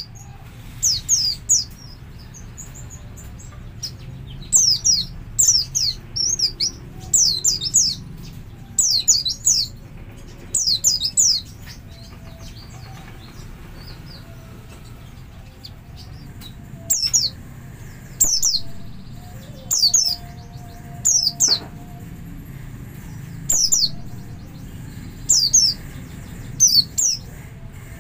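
White-eye (pleci) calling: short, high, downward-sweeping chirps in quick pairs and triplets, repeated about once a second, with a pause of a few seconds around the middle. This is the pleci's 'double' call, used as a lure to draw other white-eyes into song.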